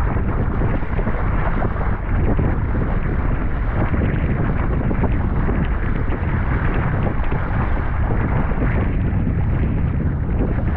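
Steady wind buffeting the microphone over water rushing and splashing past the hull of a Sunfish sailboat moving under sail.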